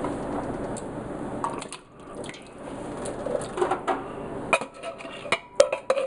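Canned food being poured and tipped from metal cans into a cooking pot: wet splashing and sliding, with the cans knocking and clinking against the pot, the sharpest knocks near the end.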